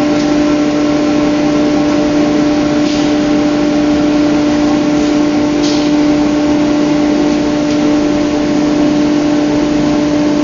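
Four-spindle CNC wood router running, a steady high hum over a constant rushing noise. Two brief hisses come about three and five and a half seconds in.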